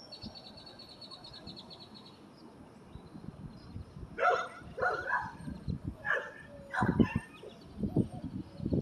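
A bird trills rapidly for about two seconds, then a dog barks four or five times from about four seconds in.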